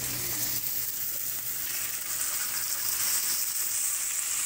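Steak searing in a hot cast iron frying pan, a steady sizzle.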